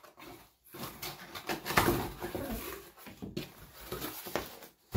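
Cardboard box being handled and opened by hand: irregular scraping, rustling and knocking of cardboard, in uneven bursts with short pauses.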